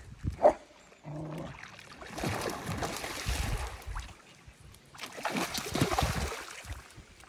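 A large fish, shot with a bowfishing arrow, thrashing and splashing at the water's surface in two bouts, with a single sharp knock about half a second in.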